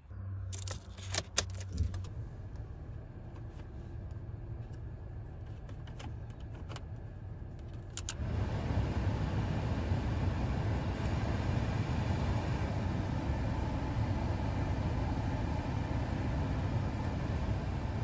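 Ignition key turned in a Toyota Corolla with a few clicks and jingles of the key ring, and the engine starts and idles with a low steady hum. About 8 s in, the heater and AC blower fan switches on with a steady rush of air over the idle.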